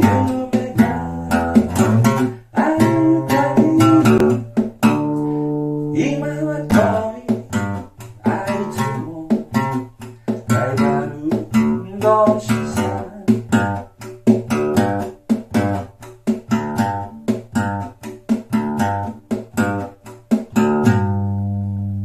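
Acoustic guitar strung with a single string, strummed in a quick, steady rhythm as song accompaniment, closing about a second before the end on a last note left to ring and fade.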